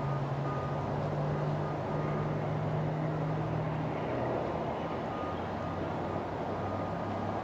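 A steady low mechanical rumble, with a low hum that drops away about four seconds in.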